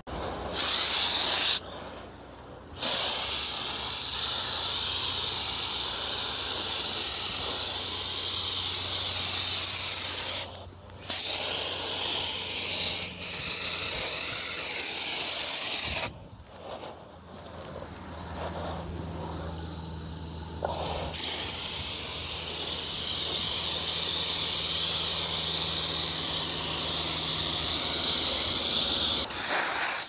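Compressed-air spray gun with a cup, fed by an air hose, hissing as it sprays finish onto carved wood. It sprays in long runs of several seconds with short breaks where the trigger is let go, and runs quieter for a few seconds just past the middle.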